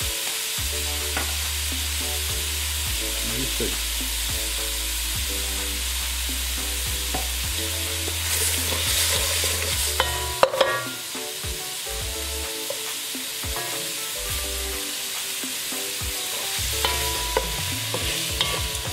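Shrimp sizzling as they fry in oil in a nonstick wok, stirred with a wooden spatula, with a few sharp clicks of the spatula against the pan about ten seconds in.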